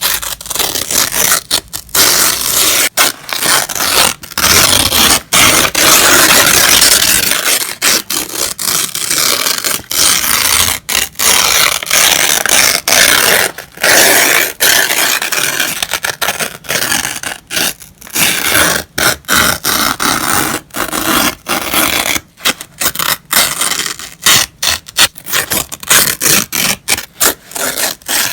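Paper being ripped by hand, a run of crisp tears of varying length, some long and some short, with brief pauses between them.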